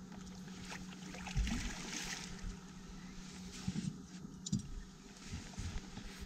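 Hooked pike thrashing at the water surface beside a boat: irregular splashes and knocks, the loudest about a second and a half in, over a steady low hum.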